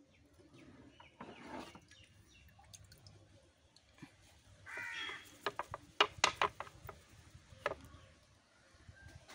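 A bird calls once, faintly, about five seconds in, followed by a quick run of sharp clicks and one more click a second later.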